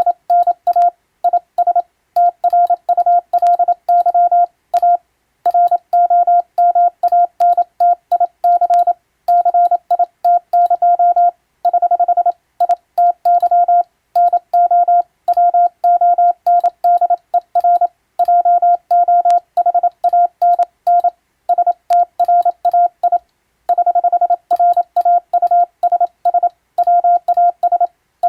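Morse code tone keyed by hand on a telegraph key: a single steady beep switched on and off in quick dots and dashes. It is sending an English-language radio telegram in international Morse, with one longer unbroken tone about halfway through and brief pauses between groups.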